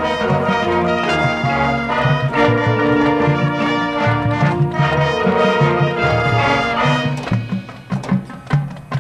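Marching band brass section playing held chords over a low pulsing rhythm. About seven seconds in the horns drop out, leaving sharp percussion hits.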